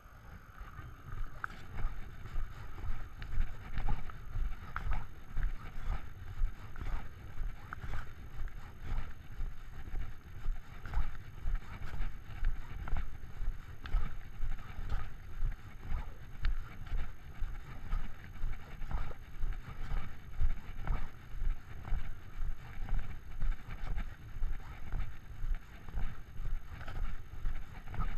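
Walking noise picked up by a body-worn camera: regular low thuds of a person's footsteps on cobblestones, with scattered small clicks and some wind rumble on the microphone.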